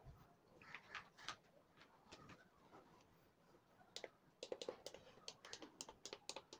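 Faint clicking of the push-button switches on an induction cooktop's control panel as they are pressed, a few clicks about a second in, then a quick run of clicks from about four seconds in. The buttons click clearly: the switches now work properly.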